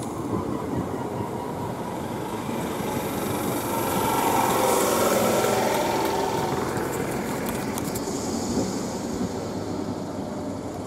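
A Class 321 electric multiple unit running along the platform. Its running noise swells to its loudest about halfway through, then eases, with a quick run of clicks from the wheels over rail joints a little after the middle.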